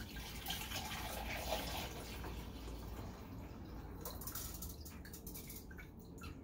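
Rice-wash water poured from a glass jar through a metal mesh strainer into a glass measuring cup, a steady splashing trickle. About four seconds in the pour thins to a few drips and light clicks as the upturned jar is held and shaken out over the strainer.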